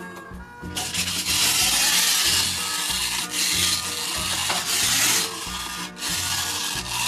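Toy rubbing and scraping against the playset for about six seconds, starting about a second in, over steady background music.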